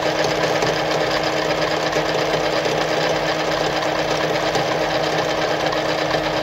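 Veritas Automatic 8014/3 sewing machine running steadily, its needle stitching a tight zigzag at a short stitch length.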